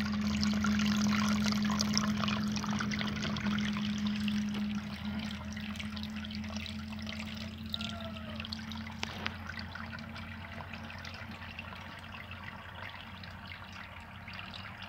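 Water trickling and splashing from small holes in a drain pipe beside a buried clay-pot fish trap into a shallow puddle. The pipe lets the water seep out slowly while the fish stay caught in the pot. A steady low hum lies under it and fades after about five seconds, and the trickle grows gradually quieter.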